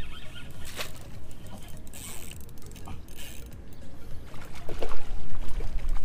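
Wind rumbling on the action camera's microphone, with scattered clicks and rustles from a spinning reel being cranked and handled; the rumble grows louder near the end.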